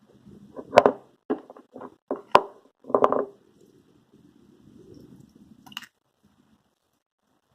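Homemade slime being stirred in a container: a run of knocks and clacks of the stirring utensil against the container over the first three seconds, then a softer, low stirring noise for about two seconds ending in a click.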